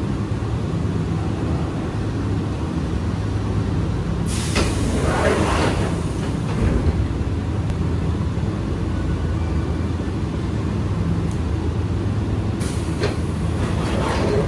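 Sliding passenger doors of a stopped electric commuter train opening with a hiss of air about four seconds in, then sliding shut near the end with a thump. The car's onboard equipment hums steadily underneath.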